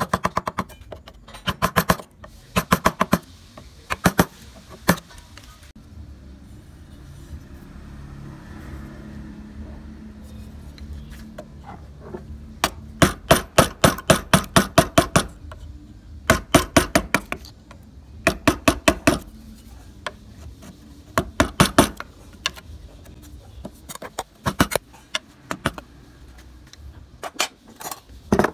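Mallet tapping a wood-carving chisel into the wood, in quick runs of several sharp strikes a second with pauses between, as chips are cut away.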